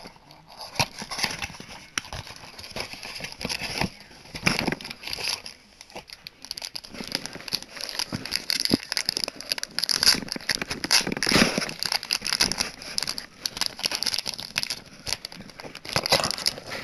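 Clear plastic bag around a can badge crinkling and crackling as fingers handle and open it, coming and going in irregular fits.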